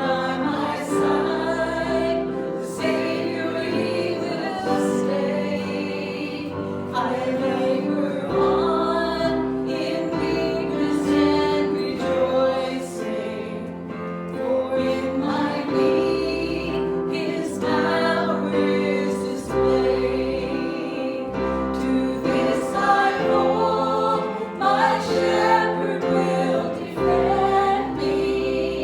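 A group of voices singing a worship song over sustained instrumental chords.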